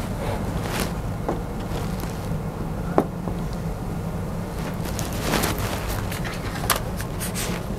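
A large painting board handled and set onto a wooden tabletop easel: a few light knocks and rustles, the sharpest about three seconds in, over a steady low hum.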